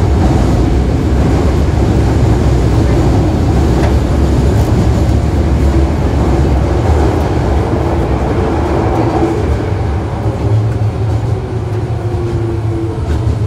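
Toei Asakusa Line 5300-series subway car running, heard from inside the car directly above its VVVF inverter: a steady, loud rumble of wheels and traction motors. Near the end the inverter's whine comes in with its pitch falling, which fits the train starting to slow.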